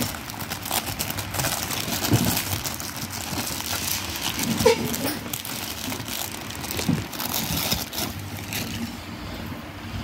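Thin clear plastic packaging crinkling and crackling as it is handled and pulled off a hand tool, in dense irregular rustles that thin out near the end.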